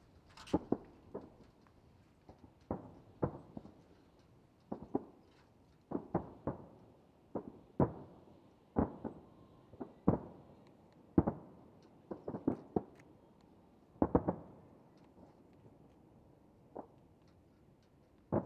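Distant aerial firework shells bursting: a long irregular run of sharp bangs, often in quick pairs or clusters, each trailing off briefly, with a short lull before a last few reports near the end.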